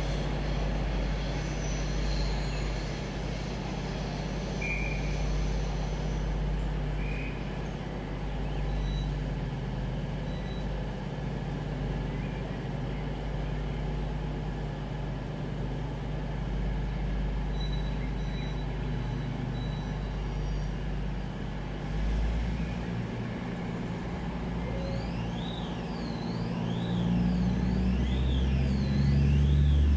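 Diesel train engines idling steadily at the platform with a low hum, growing louder in the last couple of seconds. Near the end a high warning tone sweeps up and down, repeating about once a second.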